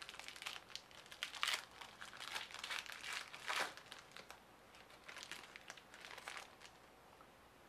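Foil wrapper of a hockey card pack crinkling and tearing as it is ripped open by hand, a dense run of crackles that thins out toward the end.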